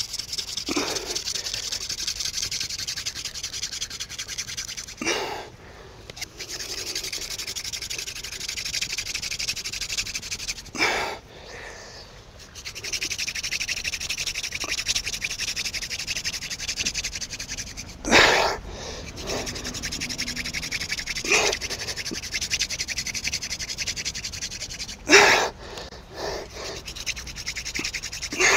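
Hand-drill fire making: a cattail spindle spun between the palms on a cottonwood-root hearth board, giving a steady rasping rub of hands and wood grinding in the notch as he drills for an ember. The rub breaks off briefly four times as the hands return to the top of the spindle, and short loud breaths come with those breaks and twice more.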